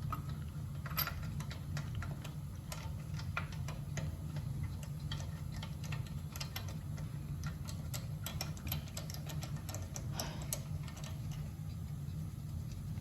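Irregular light metallic clicks and ticks from hand tools as the wheel's lug nuts are run back on, over a steady low hum.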